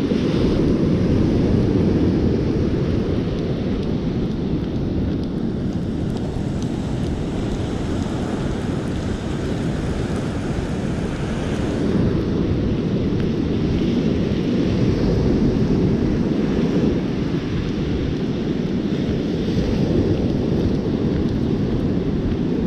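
Steady wind buffeting the microphone, a low rumble over the wash of breaking surf.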